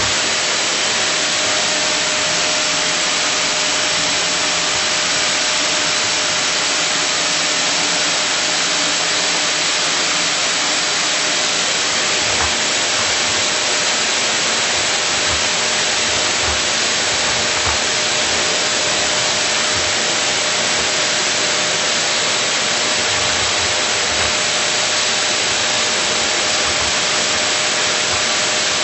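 Vacuum cleaner running steadily, a loud rushing noise with a constant whine, and scattered low thumps through the second half.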